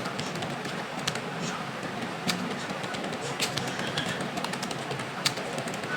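Computer keyboard keys clicking now and then, single strokes roughly a second or more apart, over a steady background hiss and murmur.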